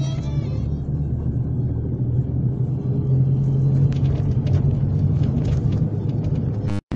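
Steady low rumble of a car's engine and road noise, heard from a moving vehicle, with a few light knocks about four seconds in; the sound cuts out suddenly just before the end.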